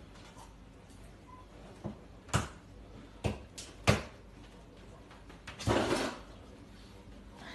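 Knocks and clatter of things being handled on a kitchen counter: five or so sharp knocks in the middle, the loudest about four seconds in, then a rougher noise lasting about half a second near six seconds in.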